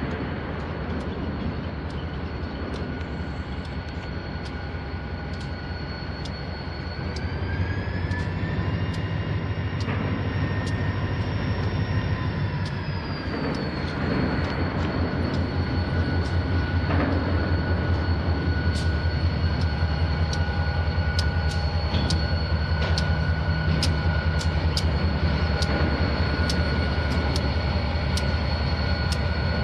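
Diesel locomotive engine running at yard switching work. About 7 s in it throttles up with a rising whine, settles back after a few seconds, then runs louder again for the rest of the stretch, with sharp clicks over it.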